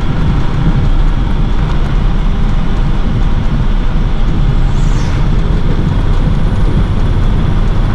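Steady, loud low rumble of a box truck's engine and road noise, heard from inside the cab while driving.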